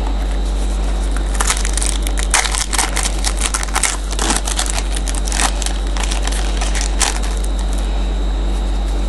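Crinkling and crackling of a trading-card pack wrapper being handled and torn open: a run of sharp crackles lasting several seconds, over a steady low electrical hum.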